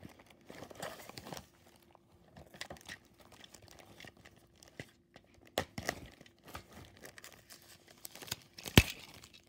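Clear plastic wrapping crinkling and rustling, with cardboard box packaging handled, as a toy train is taken out and unwrapped; a sharp click near the end is the loudest sound.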